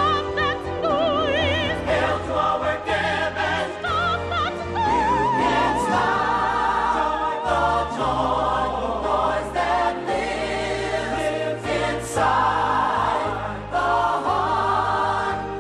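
A musical theatre number: a chorus of voices singing with instrumental backing. Held solo notes with wide vibrato rise above the ensemble in the first half.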